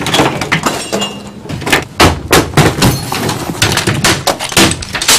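Office desk equipment and objects being knocked over, thrown and smashed: a rapid, irregular string of loud crashes and bangs, several a second.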